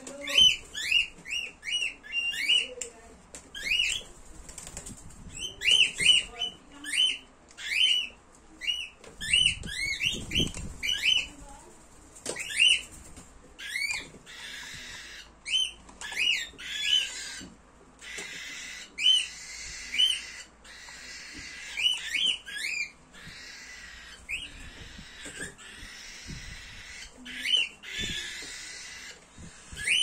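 Young cockatiel giving quick runs of short, rising chirping calls, the repeated food-begging calls of a hand-fed chick at feeding time. Twice midway the calls sit over a few seconds of steady hiss.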